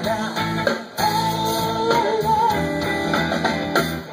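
A live band playing an instrumental passage: electric guitars over drums, with a sustained wavering lead line and a brief drop in level about a second in.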